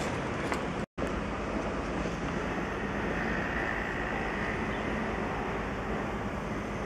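Steady city street noise of passing traffic, broken by a brief dropout to silence about a second in.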